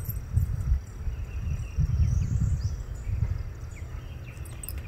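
Low, gusty rumble of wind and handling noise on a phone's microphone, with faint short chirps of small birds in the background.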